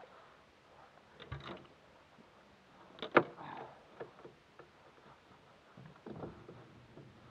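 Mostly quiet, with a few scattered soft knocks and clicks and one sharp knock about three seconds in.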